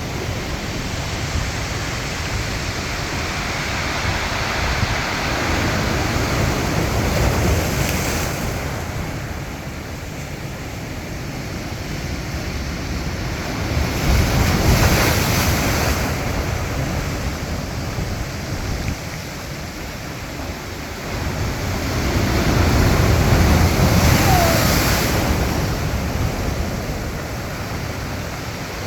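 Strong sea waves breaking, the surf building and crashing in loud surges about every eight to nine seconds over a constant wash.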